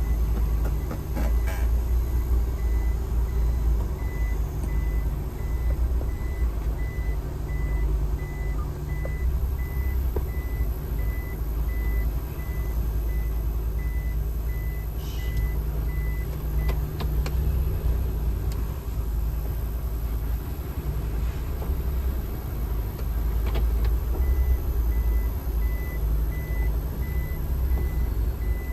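Steady low rumble of a vehicle on the move, with a high electronic beep repeating at an even, quick pace; the beeping stops about sixteen seconds in and starts again near the end.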